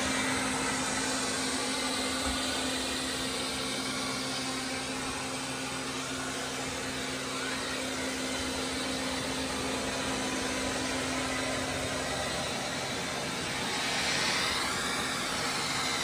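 Roborock S6 robot vacuum cleaner running over a wooden floor, heard close up at floor level: a steady whir with a low hum. The hum fades about twelve seconds in, and a brief wavering higher whine swells near the end.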